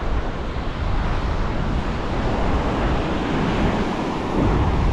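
Ocean surf breaking on a beach, a steady rush, mixed with wind buffeting the microphone, which adds a heavy low rumble.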